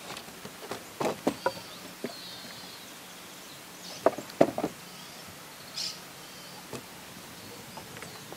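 Wooden rails of a log corral gate knocking as they are handled and slid by hand: a few knocks about a second in and another cluster about four seconds in. Birds chirp in between over a steady outdoor background.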